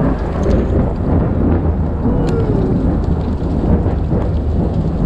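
Loud, low rumble of thunder from a nearby lightning strike, with rain falling.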